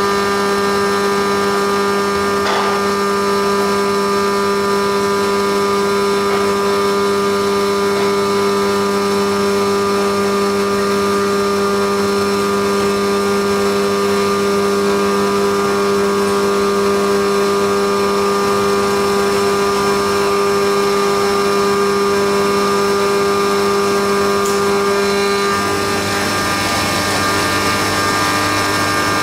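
Haas CNC milling machine running through a fourth-axis cam-milling cycle: a steady machine whine of several held tones over a hum. A faint tick comes about two and a half seconds in, and near the end the tones shift, with a lower hum taking over.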